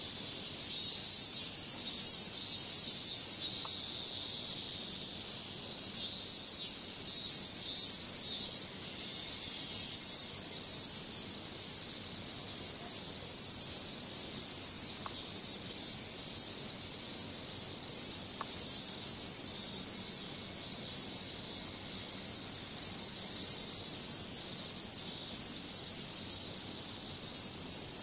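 Chorus of summer cicadas: a steady high-pitched hissing drone, with short bursts of pulsed chirping from another insect near the start and again around six to eight seconds in.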